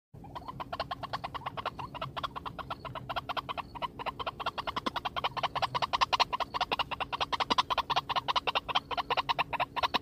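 Male white-breasted waterhen (ruak-ruak) calling: a fast, unbroken run of harsh repeated notes, about six a second, that grows louder toward the middle. A faint steady hum lies underneath.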